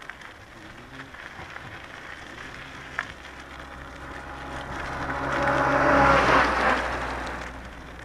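A motor vehicle passes by with its engine hum and tyre noise, growing louder to a peak about six seconds in and then fading. There is a single light click about three seconds in.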